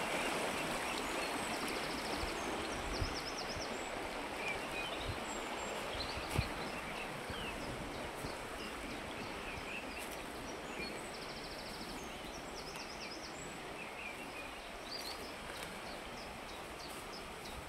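Stream running through a narrow rock channel: a steady rush of water that slowly grows fainter. Small birds call and trill over it, with the same short song phrase coming twice.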